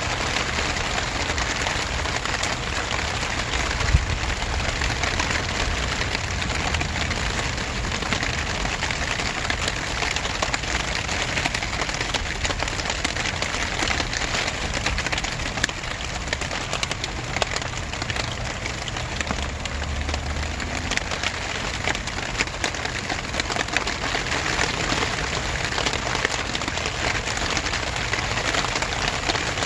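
Steady rain falling, with many small drop ticks and one sharper knock about four seconds in.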